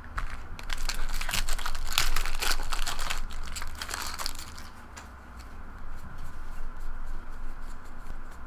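Crinkling and rustling of a trading-card pack's wrapper as the cards are handled, a busy run of crackles for the first few seconds and then softer.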